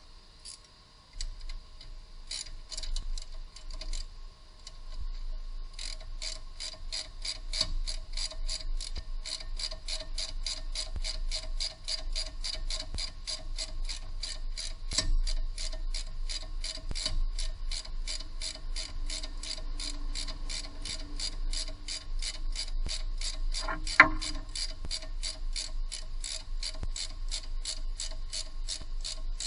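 Hand ratchet wrench clicking as it turns a control arm bolt on a car's front suspension: a few scattered clicks at first, then a steady run at about four clicks a second from about six seconds in. A single sharp knock about 24 seconds in is the loudest sound.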